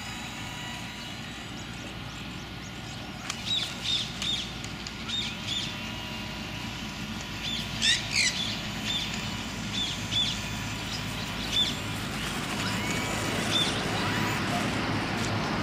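Birds calling repeatedly, a run of short high chirps every half second or so, loudest about eight seconds in, over steady outdoor background noise.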